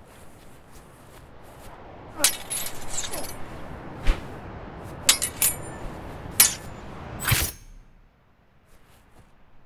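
Steel swords clashing: about six sharp, ringing blade strikes in quick succession, over a steady rushing noise that drops away near the end.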